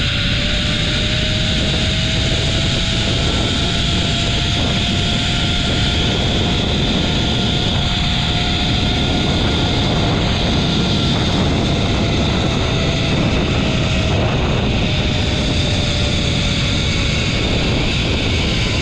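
Zipline trolley pulleys whirring along the steel cable. It is a thin, steady whine that rises a little and then slowly sinks in pitch as the rider slows, over a loud rush of wind.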